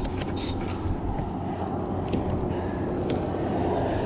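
Steady low rumble and hiss of wind buffeting the microphone, with faint clicks now and then.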